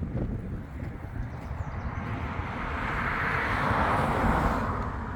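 Wind buffeting the microphone as a steady low rumble, with a passing vehicle's noise swelling about two seconds in, peaking around four seconds and fading away near the end.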